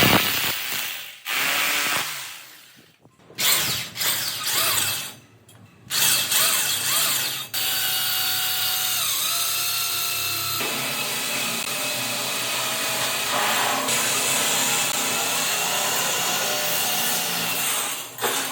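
A power tool running in several short bursts, then steadily for about ten seconds with a whining tone that dips briefly in pitch.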